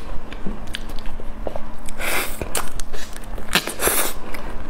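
Close-miked chewing of soft durian flesh: small wet mouth clicks and smacks, with two longer rustling noises about two and four seconds in.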